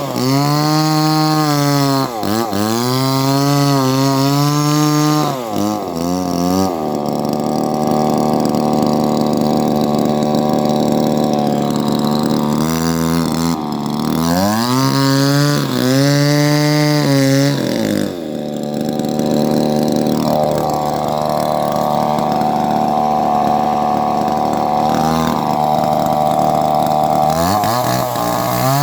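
Two-stroke chainsaw running at high revs. Its engine pitch sags and recovers several times as the chain is loaded in a cut, with steadier running between cuts.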